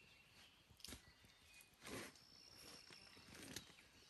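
Near silence: outdoor room tone with three soft, brief rustles or knocks about one, two and three and a half seconds in, and a faint high steady tone for about a second in the middle.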